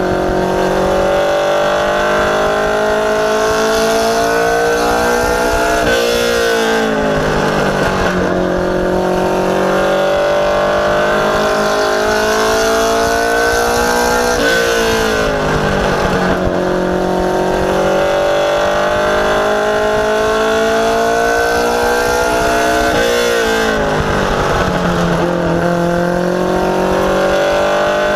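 Ministock race car engine heard from inside the cockpit, running hard lap after lap. Its pitch climbs steadily for several seconds, then drops sharply as the throttle comes off, three times.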